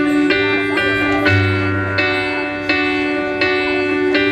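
Live pop-rock band playing a song's instrumental intro: repeated struck chords ringing out, with a low bass note joining about a second in.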